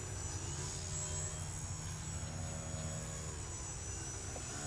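Electric motor and propeller of a superlight Twisted Hobbys Crack Laser foam 3D plane, with a steady buzz whose pitch shifts with the throttle. The pitch steps up about two seconds in and eases back a second later.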